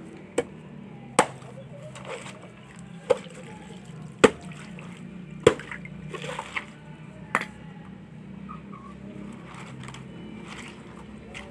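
About six sharp clinks of glass and ice, spread over several seconds, with a little faint liquid sloshing between them, as a glass of iced buko (young coconut) juice is handled and drunk.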